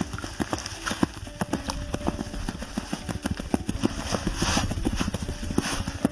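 Rapid, irregular clicks and crunches as an ice angler handles a short jigging rod and shifts in the snow, with a brief rustle of clothing about four and a half seconds in.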